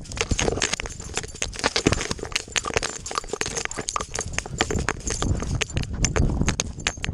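Dry grass stalks and weeds scraping and crackling against a dog's chest-mounted GoPro as the dog runs through them, with the thumps of its footfalls. A dense, irregular run of sharp scratches and clicks.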